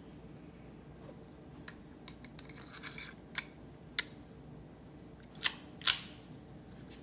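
Metallic clicks of a Colt Match Target .22 LR pistol being handled: a scatter of small clicks, a sharp click about four seconds in, then two louder clacks close together near the end as the slide is pulled back and let go.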